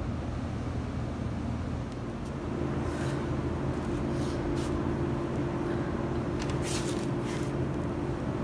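A steady low mechanical hum, like a motor or engine running, that shifts and grows a little louder about two and a half seconds in, with a few short clicks and rustles over it.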